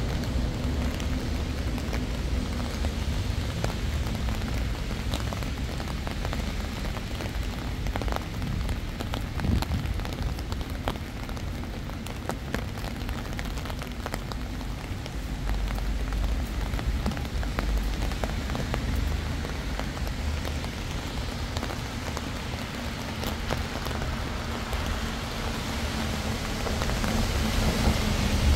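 Rain falling steadily, with many small individual drop ticks, over a steady low rumble.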